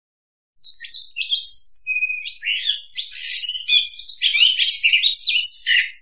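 Oriental magpie-robin singing a rapid, varied song of high whistles, trills and chirps, starting about half a second in after a short silence.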